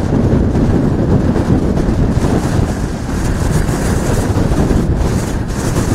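Hurricane wind blowing hard across the microphone, a steady loud rumble with floodwater washing under it. A brighter hiss joins in over the second half.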